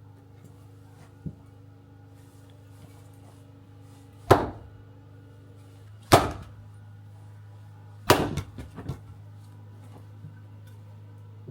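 Axe striking firewood three times, about two seconds apart, as logs are split. A few lighter knocks follow the third blow.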